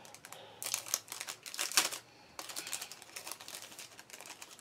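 Crinkly packaging rustling and clicking in bursts as a small pin is unwrapped by hand.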